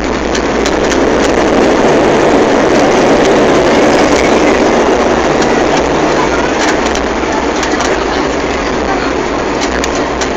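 ATR 72 turboprop's engine and propeller noise heard inside the cabin as the airliner rolls along the runway, a steady loud drone over a low rumble. It swells slightly for a few seconds in the middle.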